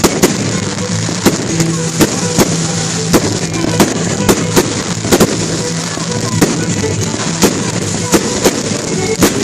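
Fireworks going off in quick succession: sharp cracks and bangs, about two or three a second at uneven spacing, with music playing underneath.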